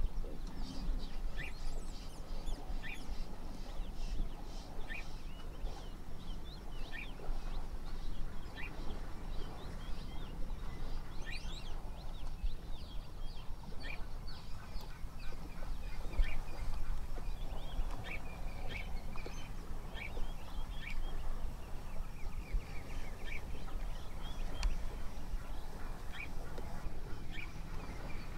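Wild birds calling in the bush: many short chirps and calls scattered throughout, over a low steady rumble.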